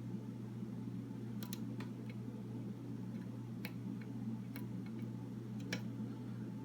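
Light, scattered clicks from a lock pick working the pin tumblers of a Master Lock No. 3 padlock while the pins are probed to see which are set, about six clicks at uneven intervals. A steady low hum runs underneath.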